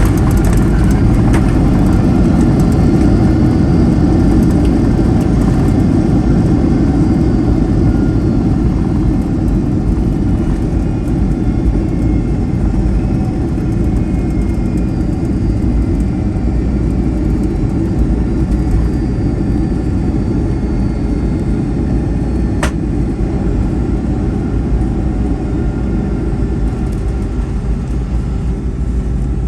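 Boeing 757-200 cabin noise from a forward seat: a heavy, steady low rumble with faint engine tones slowly falling in pitch while the overall level eases, as the jet slows after landing. A single sharp click about two-thirds of the way through.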